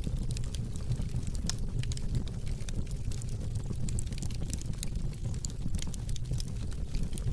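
Fire crackling: frequent small sharp pops and snaps over a low, steady rumble.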